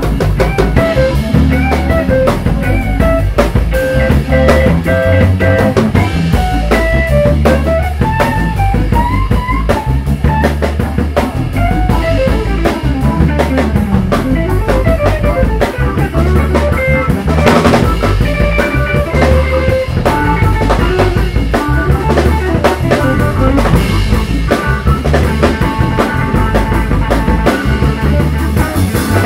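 A live soul-funk band playing an instrumental groove: a drum kit keeping a steady beat under electric bass and electric guitar, with a melody line winding up and down over the top.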